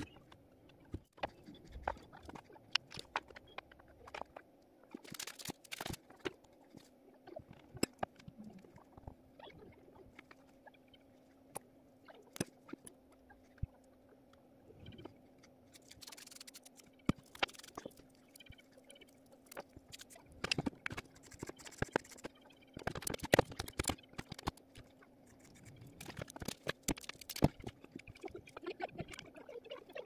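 Scattered clicks, taps and short rustling bursts from small parts being handled and fitted on a wooden board: a plastic gear motor, a metal sliding bolt and a plastic glue bottle.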